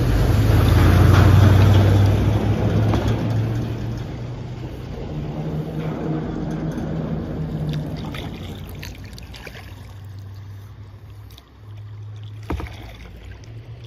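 Car crossing a road bridge overhead, its rumble loud beneath the bridge deck. It swells to a peak about a second in and fades over several seconds into a quieter, steady low hum.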